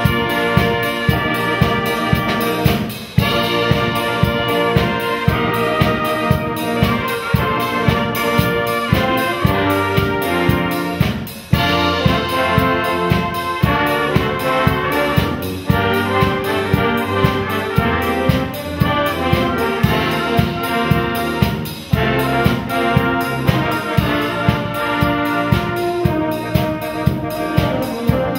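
Concert wind band playing a piece, brass to the fore over a steady beat.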